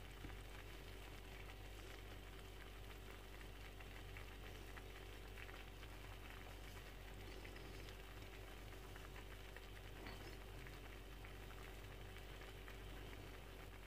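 Faint, steady sizzling and bubbling of chicken, onions and oil cooking in a clay tagine over a gas flame.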